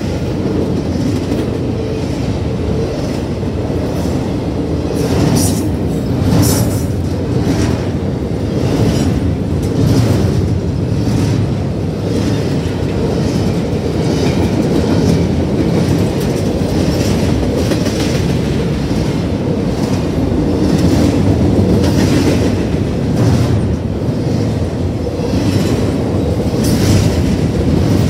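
Double-stack container cars of an intermodal freight train rolling past: a loud, steady rumble of steel wheels on the rails, broken by repeated sharp clacks.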